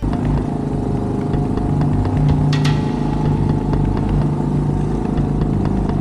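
Yamaha quad (ATV) engine running steadily under load as it climbs a steep, stony track in four-wheel drive, with a short clatter of stones under the tyres about two and a half seconds in.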